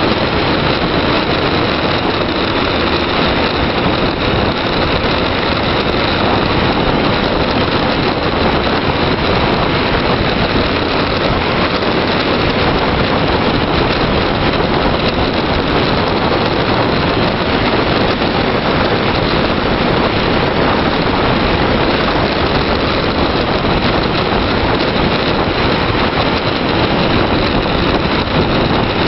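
Steady, loud wind rushing over the microphone of a camera moving fast downhill on an asphalt road, mixed with tyre noise on the road.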